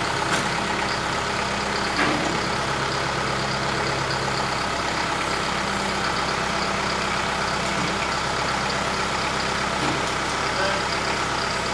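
Tractor engine idling steadily, with its note changing slightly about halfway through and a faint click about two seconds in.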